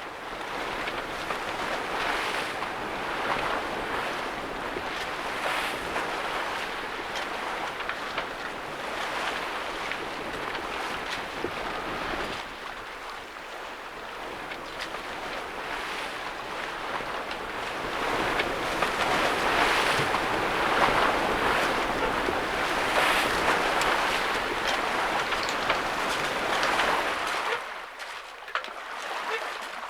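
Sea water rushing and splashing along the hull of a sailing boat under way through a tidal race, in surges every few seconds, with wind buffeting the microphone.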